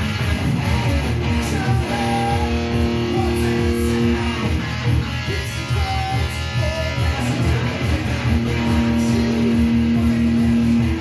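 Kramer Baretta electric guitar played through an amp: quick picked phrases broken by long held notes, one about two seconds in and another near the end.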